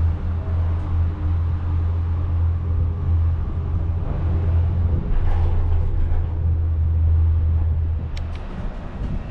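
Steady low rumble heard inside a moving Disney Skyliner gondola cabin as it rides along its cable. The rumble falls away a little past eight seconds in, with a couple of faint clicks.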